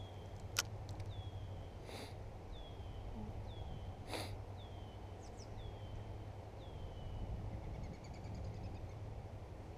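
A bird repeats a short, high, down-slurred whistle about once a second, over a steady low outdoor rumble. Three sharp clicks come through in the first half.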